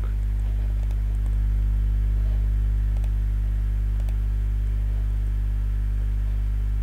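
Steady low electrical mains hum, with a few faint clicks of a computer mouse.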